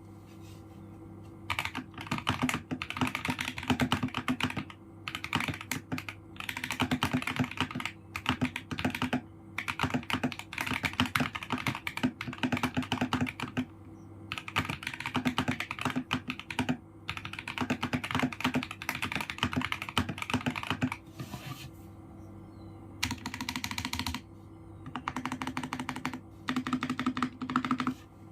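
Budget mechanical keyboard with Tecsee Purple Panda tactile switches being typed on fast, in runs of rapid keystrokes a second or two long with short pauses between, over a faint steady hum.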